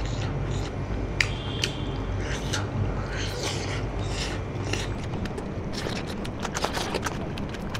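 Close-up eating sounds: chewing and mouth clicks while eating smoked pork and rice by hand, with fingers working rice on a steel plate. Many short sharp clicks, two louder ones early and a quick run of them about six seconds in, over a steady low hum.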